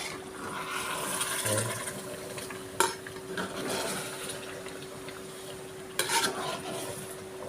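A spoon stirring and scraping in a pot of cooking chicken masala, with two sharp metal clinks about three seconds apart.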